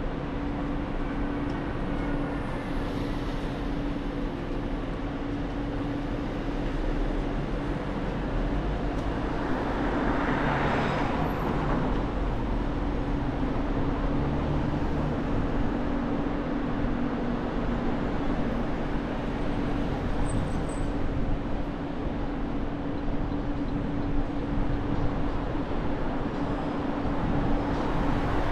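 Car driving through city streets: steady road and tyre noise with a constant low engine hum, swelling louder about ten seconds in.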